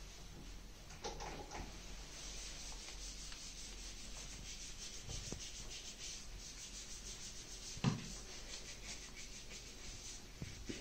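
Faint, continuous rubbing of gloved hands worked together with alcohol hand sanitizer, which is the glove hand-hygiene step at the start of removing protective equipment. One thump sounds about eight seconds in.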